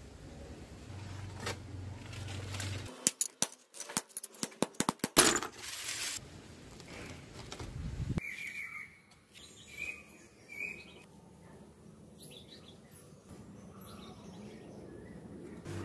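A quick run of sharp clinks and clatter, like broken ceramic tile pieces knocking together, with the loudest about five seconds in. Later, a few short high chirps of a bird sound over quieter background noise.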